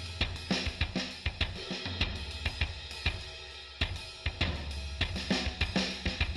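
Background music: a drum-kit beat with snare, hi-hat and cymbals over a steady bass line.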